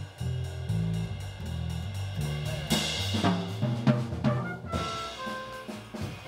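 Jazz quintet playing live, with the drum kit to the fore over bass and piano, and a cymbal crash about three seconds in. Trumpet and tenor saxophone come in with held notes near the end.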